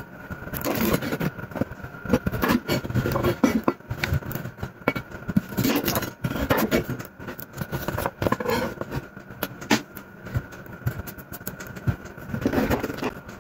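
Chef's knife cutting through raw peeled sweet potato and knocking on a wooden cutting board: a run of irregular cuts and knocks, several a second.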